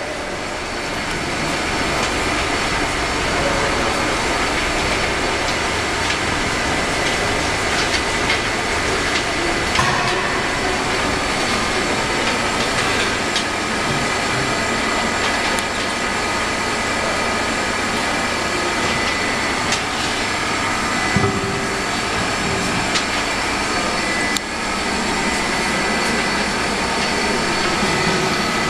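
Double-head circumferential seam welding machine for LPG cylinders running: a steady mechanical hiss and hum with a thin high whine, and a few short knocks and clicks.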